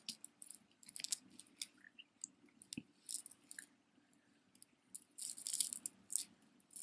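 Faint scattered clicks and light jingling of a tangled costume-jewelry necklace's thin chains and beads being handled and pulled apart by hand, with a busier patch of rustling about five seconds in.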